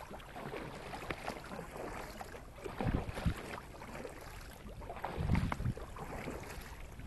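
Double-bladed kayak paddle strokes dipping into calm water, with splashes and drips, as an inflatable kayak glides along. Light wind on the microphone, with two louder swells about three and five seconds in.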